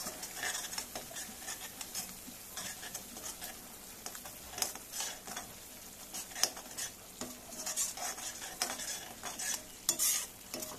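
A metal spatula stirring and scraping a thick masala paste around a kadai, with irregular scrapes and clicks against the pan over a steady sizzle of frying.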